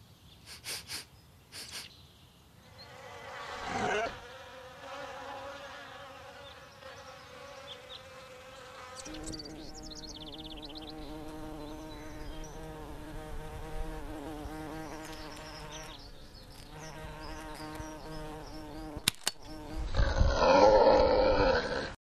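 Bee buzzing: a steady insect drone that swells about four seconds in, drops lower in pitch around nine seconds in and carries on. A few light clicks come at the start, and a louder rough burst fills the last two seconds.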